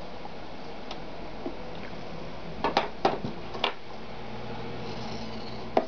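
A large pair of steel scissors snipping and clicking while leather pieces are handled at a stopped sewing machine. There are several sharp snips about halfway through and one more near the end, over a steady low hum.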